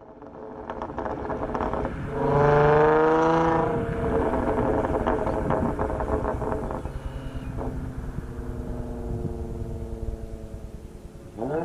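Audi S4 on a straight-through exhaust (test pipes, X-pipe, touring mufflers), tuned to pop and crackle. The engine note rises to its loudest about two seconds in, with rapid pops and crackles from the exhaust through the first half. It then settles to a steadier note and climbs quickly again near the end.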